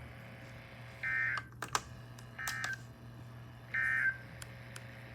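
Emergency Alert System end-of-message code: three short bursts of warbling two-tone data, about a second and a half apart, signalling the end of the alert. A few sharp clicks follow the first burst, over a low steady hum.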